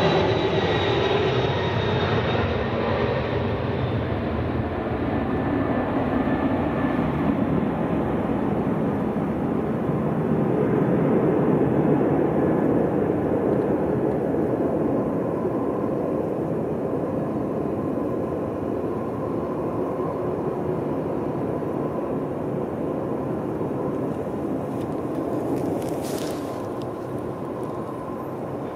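Pratt & Whitney JT9D-7R4D turbofans of a 1983 Boeing 767-200 freighter departing. A broad, steady rumble slowly fades as the jet moves away, and the higher engine whine dies out in the first few seconds.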